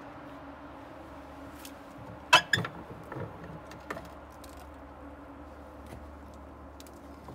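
Sharp metal clacks and clicks as the latch and handle of the lower gasification-chamber door on a Greenwood Aspen Series wood boiler are worked open. The loudest clack comes about two seconds in, followed by a few lighter clicks, over a steady low hum.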